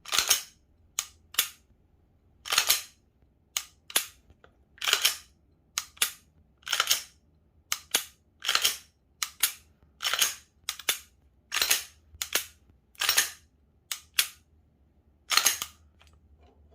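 A Glock pistol's slide being racked and its trigger dry-fired over and over, a series of sharp metallic snaps and clicks: a function check of the newly installed striker and spring kit.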